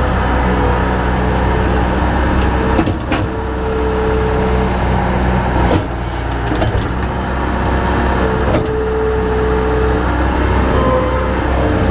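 A heavy engine running steadily, with a whine that comes and goes and a few sharp clanks about three, six and eight and a half seconds in.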